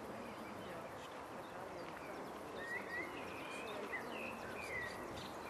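Birds chirping, a cluster of short sliding chirps in the second half, over a steady even background hum.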